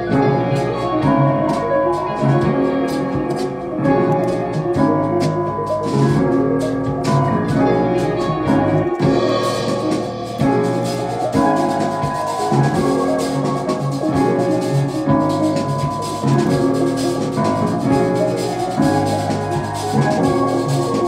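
A trap beat in progress playing back from the production software: a repeating melodic loop over drums and a steady bass line.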